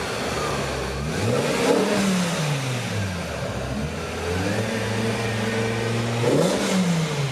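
BMW M6 E63's V10 engine revving at low speed: the revs rise and fall back about a second in, hold steady for a couple of seconds, then rise and fall again near the end.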